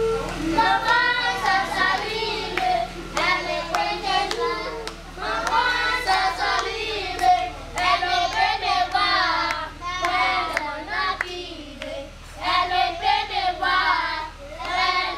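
A group of young children singing a school song together, with hand claps in time with the singing.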